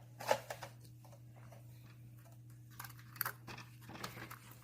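Light handling noises: a few soft clicks and rustles as small plastic toy pieces and paper are handled, over a steady low hum.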